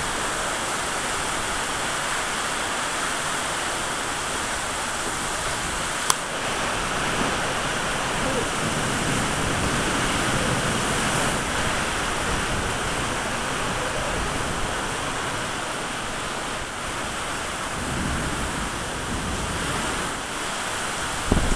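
Steady rushing noise of a thunderstorm on a beach, with rain, wind and surf blended together, and one sharp click about six seconds in.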